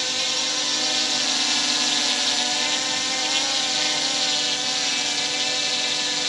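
Small quadcopter drone's brushless motors and propellers whining steadily in flight, the pitch drifting up and down slightly as the motors adjust.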